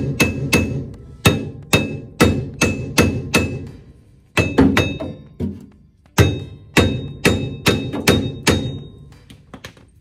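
Hammer blows on a steel wheel hub and brake rotor, about two a second in three runs with short pauses, each strike leaving the metal ringing, followed by a few lighter taps near the end.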